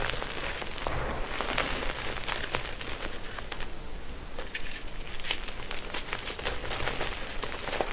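Gym chalk crunching and crumbling as it is crushed: a dense run of small crackles and sharp crunches over a soft powdery hiss.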